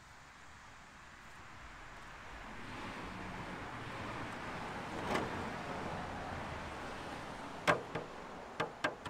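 A rushing noise swells and fades over several seconds, then a few sharp plastic clicks near the end as a clear polycarbonate RC car body is lifted and flexed.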